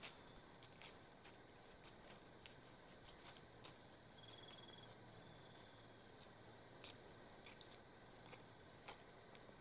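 Near silence, broken by faint, irregular crunches of dry leaf litter as a white-tailed deer walks through the woods. Two brief faint high-pitched tones come near the middle.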